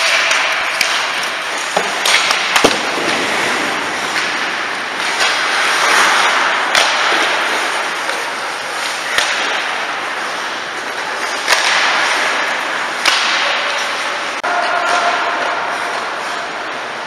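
Ice hockey play at the goal mouth: skates scraping and carving on the ice, with about eight sharp clacks of sticks and puck striking sticks, pads and the boards.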